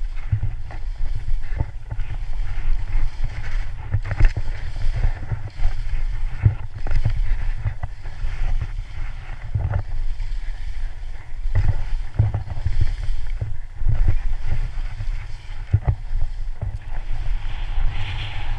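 Downhill skiing in snow heard on a body-mounted camera's microphone: a steady wind rumble on the microphone, with the hiss and scrape of skis through the snow and irregular knocks from the turns.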